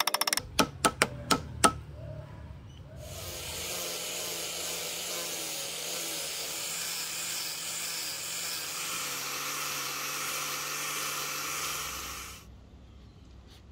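Four hammer taps, then an angle grinder with a sanding disc running steadily as it sands a hardwood axe handle, cutting off near the end.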